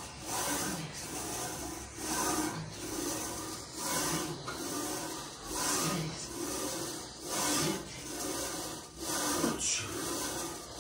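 Heavy, rhythmic breathing in and out from exertion during barbell squats. Some breaths are voiced, and the swells come about once a second.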